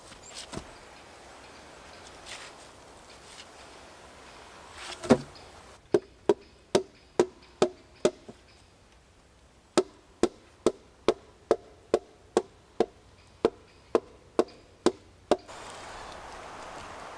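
Chopping on wood: two runs of sharp, evenly spaced knocks, about two to three a second, with a short pause between them. A steady hiss starts near the end.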